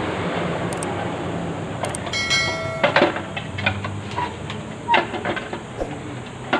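Steady workshop background noise, with a short bright chime about two seconds in and then several sharp clicks, typical of the sound effect of a subscribe-button animation.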